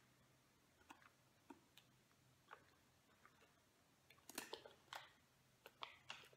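Near silence with faint wet mouth clicks from chewing a soft, mealy chestnut. The clicks are scattered, bunching about four and a half seconds in and again near six seconds.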